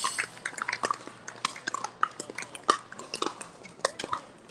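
Pickleball court sounds: scattered sharp pops of paddles hitting the plastic ball, with short squeaks of shoes on the hard court in between. The loudest pops come about a second and a half in and just before three seconds in.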